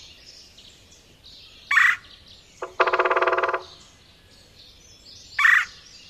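Recorded woodpecker calls: a short, harsh call note about two seconds in and again near the end, and around three seconds in a longer rolling, buzzy churr lasting about a second, the red-bellied woodpecker's toned-down 'whirr' call beside the red-headed woodpecker's forced 'weeer' call.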